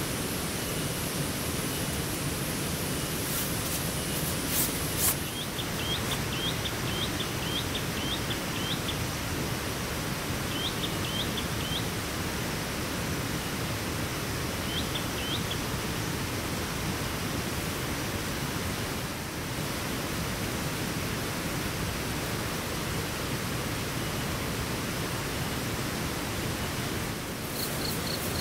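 Heavy rain falling steadily, a loud, even hiss. Short runs of quick high chirps come through it between about five and fifteen seconds in.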